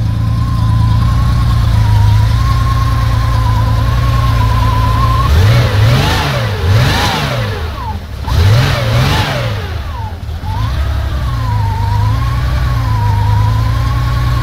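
Porsche 911 SC's air-cooled 3.0-litre flat-six with CIS fuel injection idling steadily, warmed up and settled at about 900 rpm, with a faint wavering whine over it. About five seconds in, the throttle is blipped four times in two quick pairs, each rev rising and falling back, before the engine returns to a steady idle.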